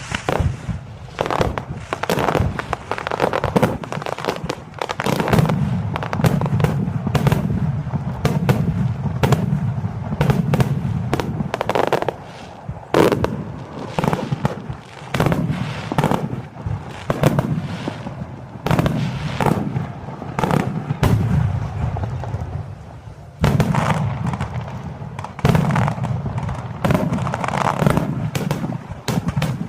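Aerial fireworks shells bursting in rapid, overlapping succession, each sharp bang trailing off in an echoing rumble, in a continuous barrage.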